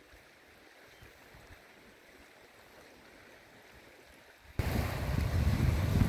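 Faint outdoor hiss, then, about four and a half seconds in, wind suddenly starts buffeting the microphone with a loud, uneven low rumble.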